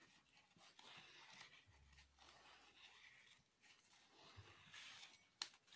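Near silence: faint rustling of jute twine being pulled and wound around a plastic plant pot, with one short click near the end.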